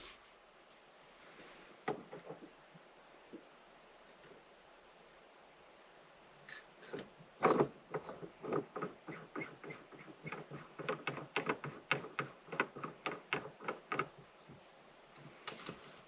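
Small metallic clicks and taps of a shift knob and tools being worked on a car's gear shifter. After a quiet start they come as an irregular run of about three a second from around six seconds in.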